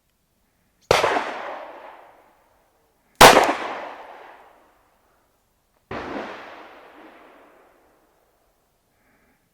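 Three single 9mm pistol shots from a Glock 19, fired slowly about two and a half seconds apart as aimed fire for a group. Each shot rings out and dies away over a second or so; the second is the loudest and the third the softest.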